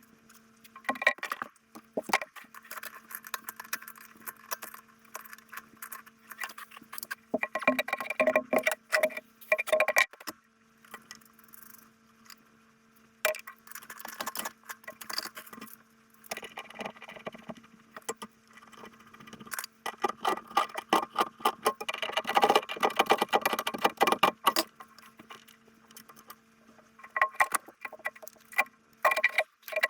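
Irregular metallic clicks and clinks of hand tools working on pipe fittings, coming in clusters with a busy stretch about two-thirds of the way in, over a steady low hum.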